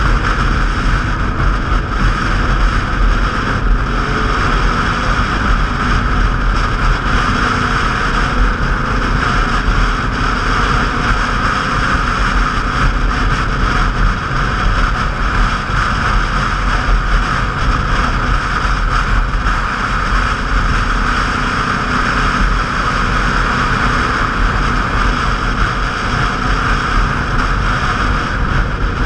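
Motorcycles riding in a group, engines running steadily under a constant rush of wind over the microphone; a few engine notes rise and fall faintly in the first half.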